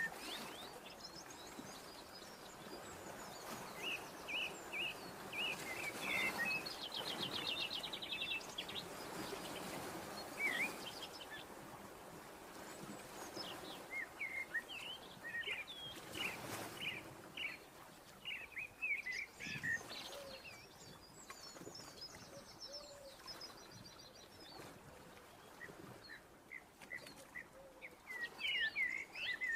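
Small birds chirping, with short repeated calls and a quick trill, over a faint steady hiss.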